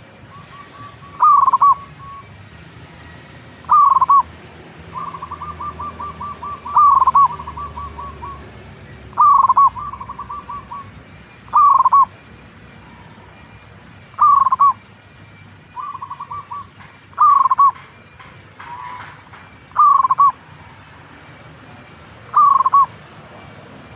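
Zebra dove cooing: loud short coos repeat about every two and a half seconds, several of them led in by a quick run of soft pulsed notes.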